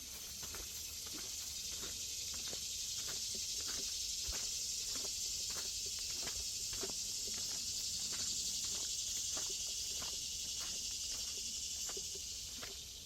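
Footsteps on a trail at a steady walking pace, about two steps a second, under a high, steady insect drone that swells and then fades away near the end.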